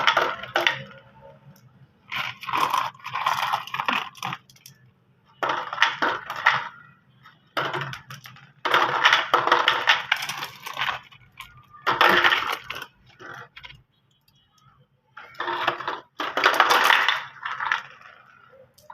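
Marbles rolling and clacking down a marble-run track in bursts of rapid clicking, each one to three seconds long, with short pauses between runs.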